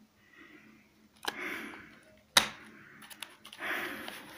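Blu-ray discs and a clear plastic disc case being handled: sharp plastic clicks, the loudest about halfway through, with scraping as the discs are lifted and slid out.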